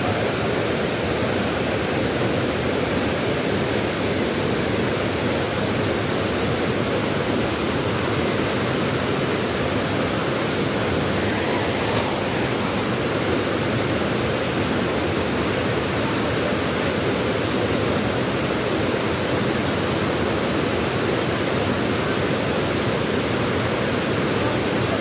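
Steady rush of river water pouring over rock cascades and a waterfall, an even, unbroken roar of moving water.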